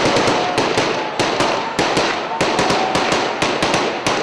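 A rapid, irregular series of sharp cracks, about four to six a second, over a steady noisy background.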